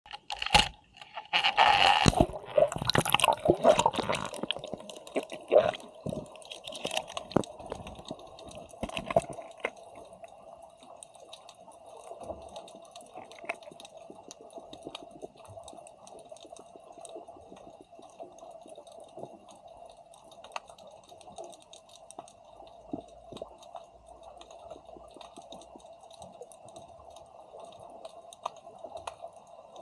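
Water splashing and bubbling around a camera as it goes under the sea surface, loud and irregular for the first several seconds. After that comes muffled underwater ambience: a steady hum with constant faint clicking.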